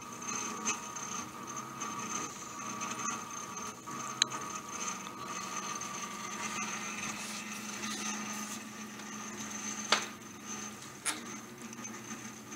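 Stepper motors of a custom-built large-format gantry 3D printer driving the print head through a dry run without filament: a steady mechanical whine with several fixed tones. Two sharp clicks, about four and ten seconds in.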